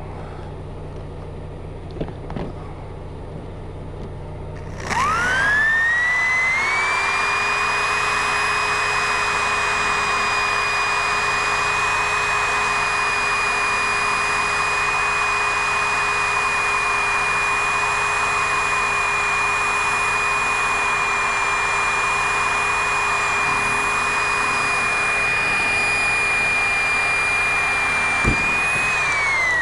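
Corded electric drill spinning up about five seconds in, then running at a steady high whine for over twenty seconds as it bores a hole through the end of an RV screen door crossbar, and winding down near the end.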